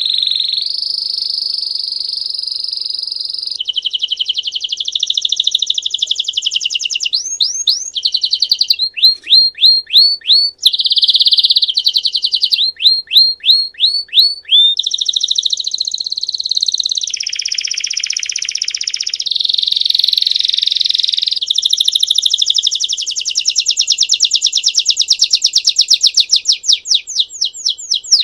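Domestic canary singing a long, unbroken song of rolling trills and rapid runs of repeated notes, changing phrase every second or two. Some runs are slower, separate chirping notes, and near the end a fast trill speeds up.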